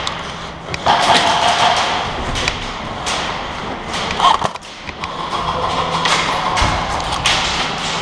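Irregular thumps and sharp taps over a noisy, echoing background, from footsteps, gear knocks and airsoft play inside a plywood-walled indoor arena.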